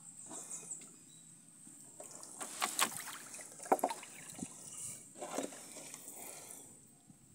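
Wet nylon cast net being hauled out of the river and dropped into a wooden boat: water dripping, trickling and splashing off the mesh, with a few sharper splashes and knocks against the hull.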